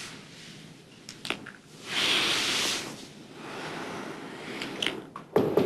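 Close kissing and breathing with soft rustling of clothes, with a few small wet clicks. A louder sudden sound starts near the end.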